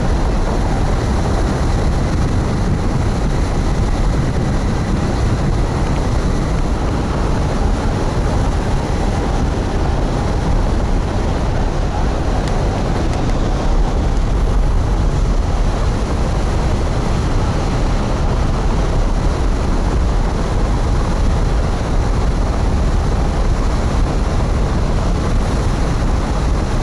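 Loud, steady wind buffeting a camera microphone mounted on the wing of a hang glider in flight, a constant rush heaviest in the low rumble.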